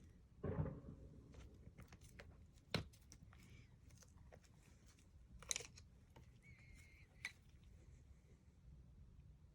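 Quiet room with a few light clicks and taps, about four, from small craft supplies being handled, and a brief faint squeak a little past the middle.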